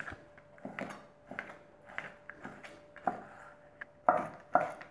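Chef's knife dicing soft matjes herring fillets on a plastic cutting mat over a wooden board: a steady run of knife taps, about two a second, louder near the end.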